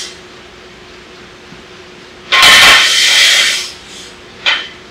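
Square steel tube scraping and sliding across the steel frame rails for about a second and a half, followed by a short metal knock near the end.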